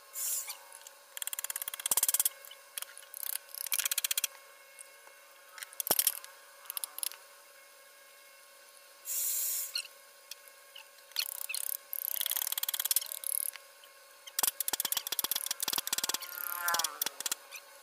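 Hand chisel and gouge cutting into wood, pushed by hand. The strokes come as irregular bursts of short scraping cuts, with a few sharp clicks of the tool.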